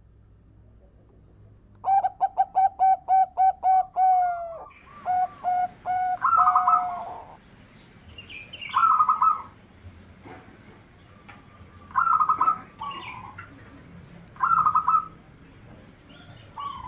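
Zebra dove (perkutut) cooing: a fast run of about ten short notes, then a few longer coos, then separate cooing phrases every two to three seconds.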